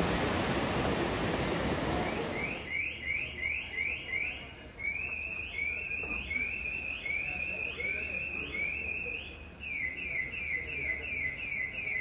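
A steady rushing noise for the first couple of seconds, then a small bird chirping over and over, about two short rising chirps a second, quickening to about four a second near the end.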